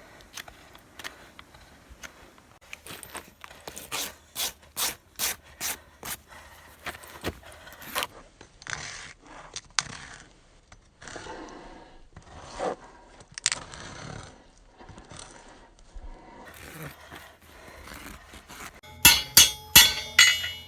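A farrier's rasp filing a horse's hoof in repeated scraping strokes, at times a steady run of about two or three strokes a second. Near the end come several loud, sharp, ringing strikes.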